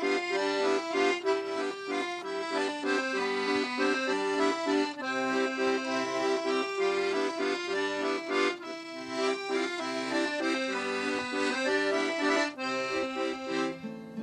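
Piano accordion playing a traditional folk tune solo: a quick-moving melody over held lower notes.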